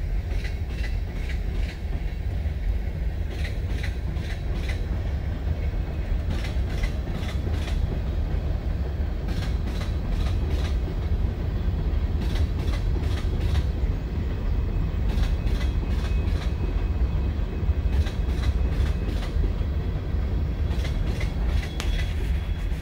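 Steady low rumble with scattered light clicks and knocks, heard from inside a car rolling on a dirt road while a string of hopper cars moves along the tracks nearby.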